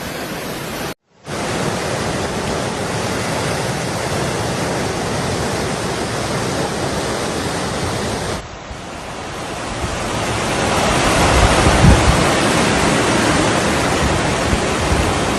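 Floodwater rushing in a steady, loud hiss. It drops out briefly about a second in and changes character at about eight seconds. It grows louder after that, with low rumbles of wind on the microphone near the end.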